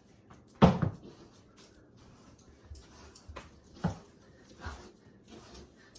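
A sharp, loud thump just over half a second in, followed by a few fainter knocks and clicks, in a small room.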